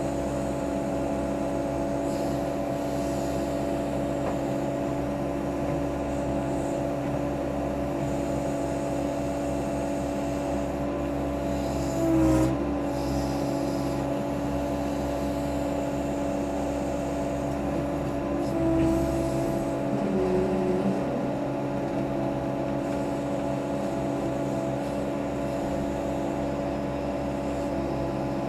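Case 580C backhoe's engine running steadily while the backhoe arm is worked. The engine note lifts briefly, about twelve seconds in and again around nineteen to twenty-one seconds.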